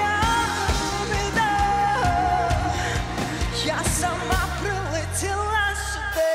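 A live rock song: a woman sings a melody over electric guitars, bass and a steady drum beat.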